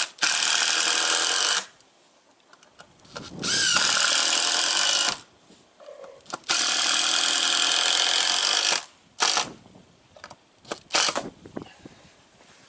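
Power drill running in three long bursts of one to two seconds each, then two short blips in the last few seconds.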